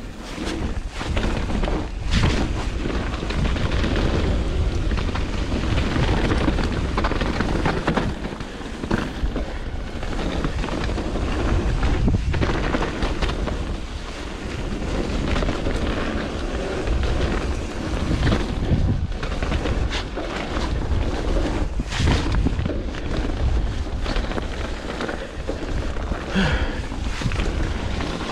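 Mountain bike riding down a wet dirt trail: wind buffeting the camera microphone, a steady rumble of tyres on mud and dirt, and the bike rattling and knocking over roots and bumps all the way.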